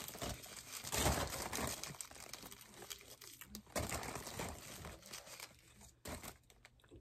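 Plastic food wrapper crinkling and tearing as a chicken roll is unwrapped by hand, in irregular rustling bursts that thin out near the end.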